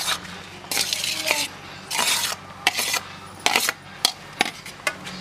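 Steel serving spoon scraping against a steel bowl as cooked rice is scooped out onto a banana leaf, in a few short scrapes followed by several sharp clinks of metal on metal.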